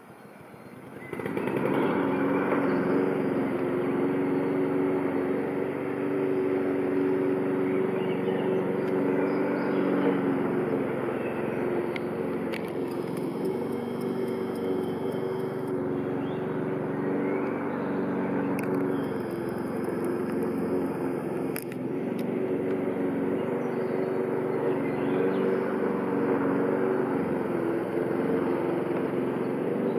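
An engine running steadily with a low, even hum, coming on about a second in.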